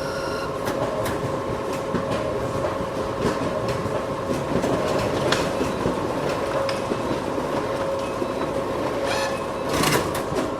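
Copy machine running: a steady mechanical whir and hum with scattered clicks and clacks, and a burst of louder clicking near the end.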